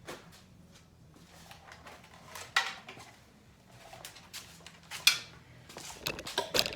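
Handling noises of small objects being picked up and set down: scattered clicks and clinks, two sharp ones a few seconds apart, then a quick run of clatter near the end.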